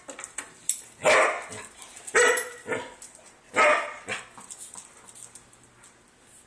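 Poodle barking at a cat: three loud, sharp barks about a second apart, with a couple of softer barks among them.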